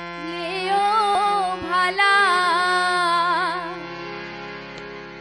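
A woman singing a Dhamail folk song melody with wavering, ornamented notes over sustained accompaniment. About two-thirds of the way through the voice stops, leaving a held instrumental chord that fades.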